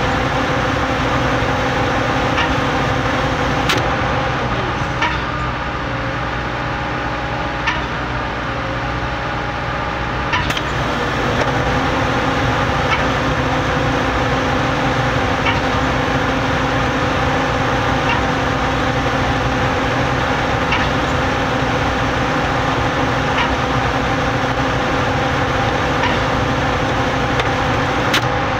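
Putzmeister trailer concrete pump running steadily while pumping concrete, its engine holding a steady pitch, with a short knock about every two and a half seconds as the pump's pistons change stroke.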